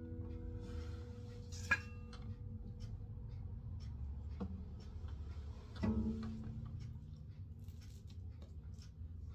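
Acoustic guitar: the last strummed chord rings out and fades away, then two single notes are plucked about four and a half and six seconds in and left to ring. A sharp click comes just under two seconds in.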